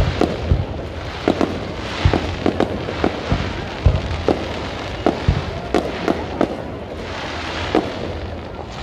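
Aerial fireworks shells bursting: an irregular series of sharp bangs and crackles, several a second at times, thinning out near the end.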